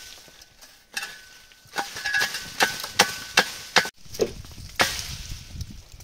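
Apricots dropping from the tree onto a plastic sheet spread beneath it: a string of irregular sharp taps and knocks.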